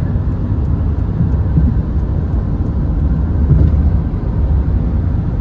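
Car road noise while driving: a steady low rumble.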